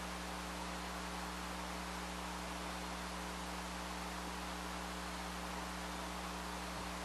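Steady electrical mains hum under an even hiss, with no distinct work sounds.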